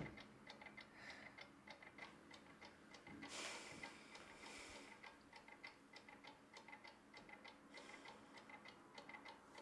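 Faint, steady ticking of a clock in a quiet room, with a brief soft hiss about three seconds in.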